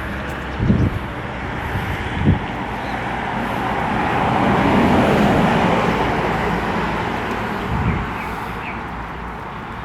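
Road traffic noise, with a motor vehicle passing that is loudest about five seconds in, and two short knocks in the first few seconds.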